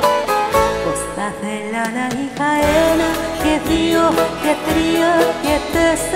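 A woman singing a Greek song into a microphone over amplified backing music with a steady beat. The bass drops out near the start and comes back in about two and a half seconds in.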